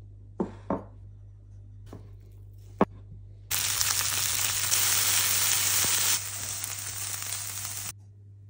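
Chunks of lamb searing in a hot non-stick frying pan, sizzling loudly; the sizzle starts suddenly about three and a half seconds in, eases a little past the middle, and stops abruptly near the end. Before it, a few sharp knocks.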